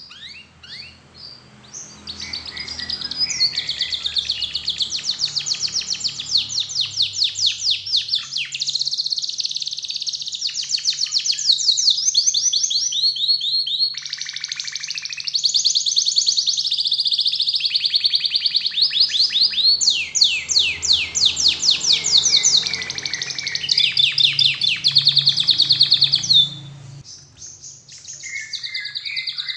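Domestic canary singing a long song made of fast rolling trills of high notes, with short breaks, that stops about three seconds before the end and gives way to a few softer chirps.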